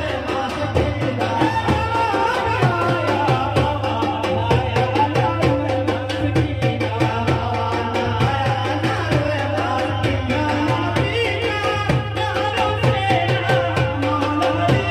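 A man singing a devotional song through a microphone and loudspeakers, accompanied by hand drums keeping a steady beat.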